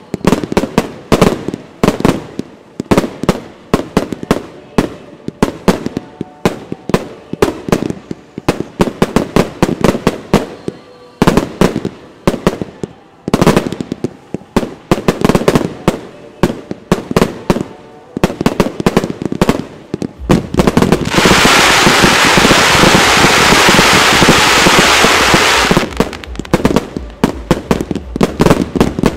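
Fireworks display shooting a rapid barrage of shots and aerial bursts, several bangs a second. About two-thirds of the way through, the shots come so fast they merge into one continuous noise for about five seconds, then separate bangs resume.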